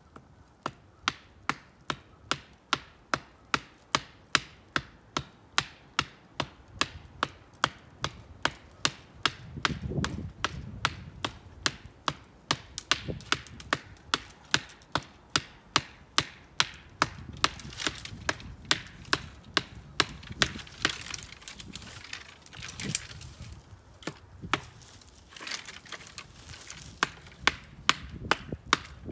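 Hafted ground-stone axe chopping into the trunk of a young black walnut sapling: a steady run of sharp wooden chops, about two a second.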